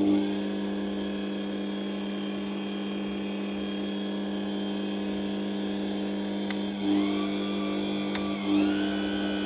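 Bosch MUM 5 stand mixer's 1000 W motor switching on and running with a steady hum and whine. Its whine rises in pitch in steps near the end as the speed setting is turned up, with a couple of short clicks.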